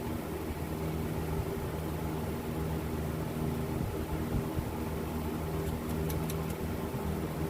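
Steady mechanical hum of a running machine, made of several fixed low pitches, with a few faint clicks about six seconds in.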